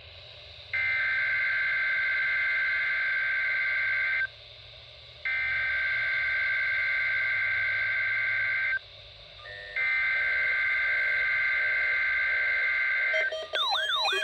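Emergency Alert System SAME header from a weather radio broadcast: three bursts of digital data tones, a buzzing two-tone warble each about three and a half seconds long, with a pause of about a second between them. Just before the end, a siren-like alarm tone that sweeps up and down begins.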